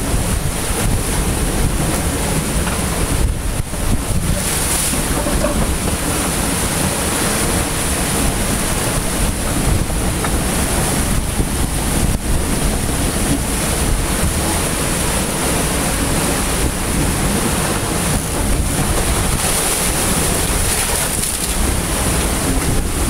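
Strong wind buffeting the microphone over the steady rush of breaking seas along a sailboat's hull in rough water.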